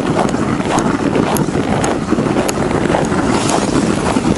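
Wind buffeting the microphone in a steady rumble, with footsteps crunching on packed snow about twice a second.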